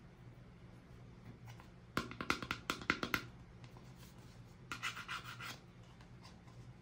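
Hands handling toys: a dense burst of quick scratching clicks about two seconds in, and a second, softer burst near five seconds.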